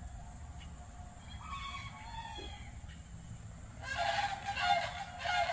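Eastern wild turkeys giving a few faint short calls over a low wind rumble. About four seconds in, louder background music begins abruptly.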